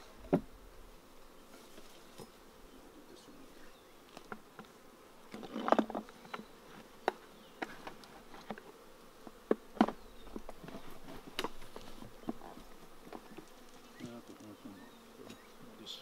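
Honey bees buzzing at an open hive, with scattered sharp knocks and clicks, the loudest about six and ten seconds in.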